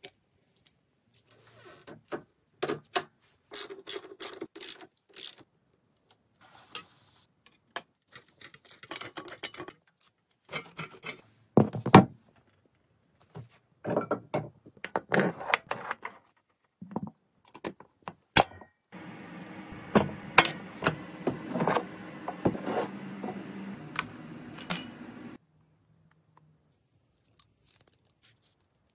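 Metal parts being fitted to a painted Jawa 350 motorcycle frame by hand: a string of separate clinks, knocks and scrapes, with a steadier mechanical noise lasting about six seconds past the middle.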